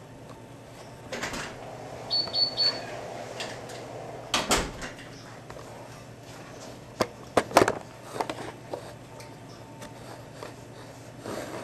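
Kitchen clatter over a steady low hum: scattered knocks and clicks, with a louder knock about four and a half seconds in and a quick run of sharp clicks around seven to eight seconds in, plus a brief high chirp about two seconds in.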